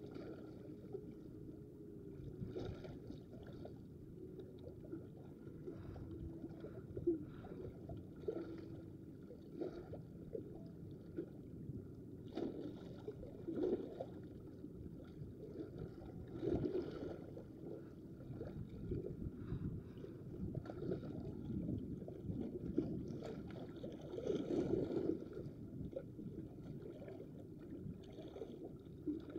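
Seawater lapping and sloshing against shoreline rocks, a faint, irregular wash with a few brief louder peaks.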